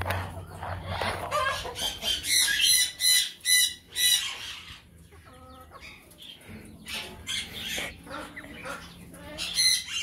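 Chickens calling: clucks, with a run of loud harsh squawks about two to four seconds in and another burst near the end.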